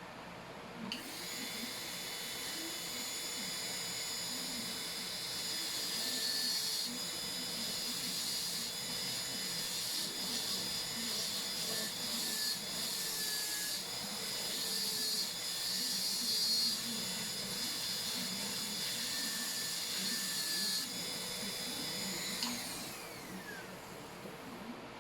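High-speed dental handpiece (air-turbine drill) running with a steady high whine while cutting the cavity preparation. It starts about a second in and winds down with a falling whine near the end.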